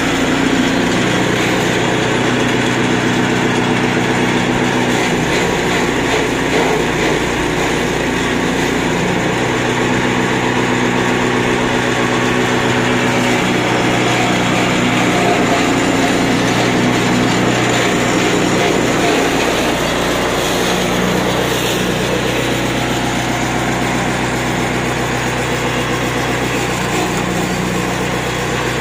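Small petrol engine running steadily at constant speed, belt-driving a feed chopper (chaff cutter).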